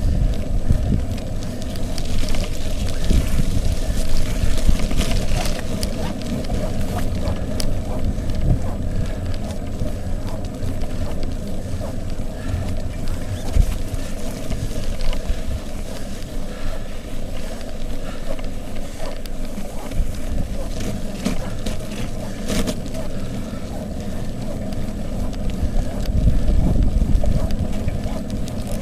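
Wind buffeting the microphone on a moving bicycle, a steady uneven rumble, with the bike's tyres rolling over wet pavement and a few small clicks and knocks.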